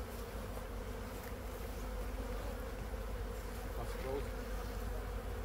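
Honeybees buzzing, a steady hum of many bees.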